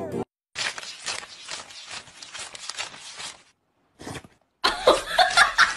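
Crisp crackling rustle of a wad of paper banknotes being flicked through by hand, for about three seconds. Near the end a louder run of rapid, rhythmic pulses begins.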